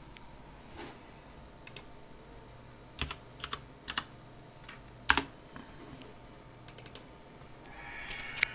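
Computer keyboard being typed on: a dozen or so short, irregular key clicks with uneven gaps between them.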